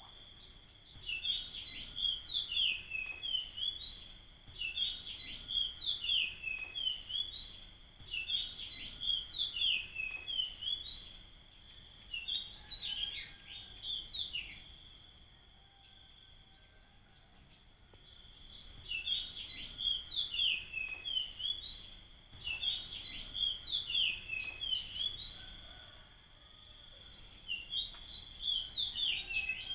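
A songbird singing bouts of short whistled phrases that swoop up and down, about one a second. It pauses for a few seconds about halfway through and again briefly near the end, over a steady high-pitched whine.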